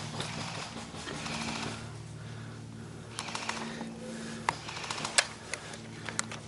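Airsoft gunfire: a quick burst of rapid clicking shots about three seconds in, followed by single sharp snaps.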